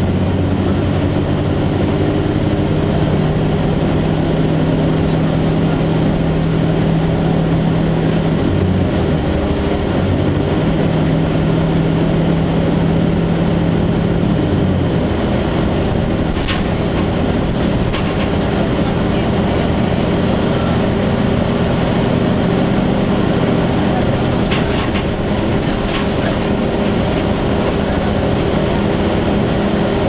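Cummins ISC diesel engine of a Blue Bird CS transit bus heard from inside the cabin while driving, its drone stepping in pitch several times as the bus pulls along. A few sharp rattles or clicks come through, about halfway in and again near the end.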